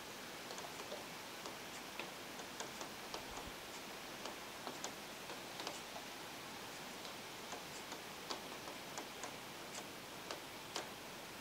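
Steady rain falling, an even hiss broken by irregular sharp ticks of drops landing close by, a few each second.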